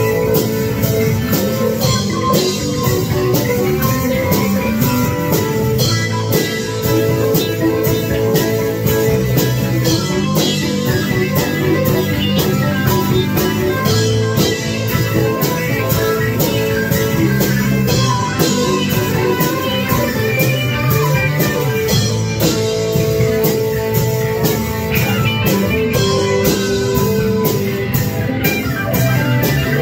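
A band jamming on electric guitars over a drum kit, loud and steady throughout, with a regular beat.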